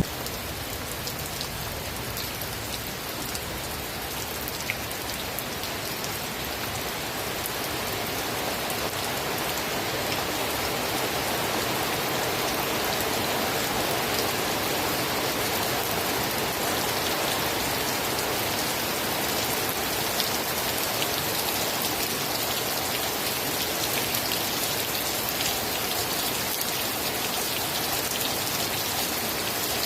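Steady rain falling: an even hiss of many drops, growing slightly louder over the first ten seconds or so and then holding level.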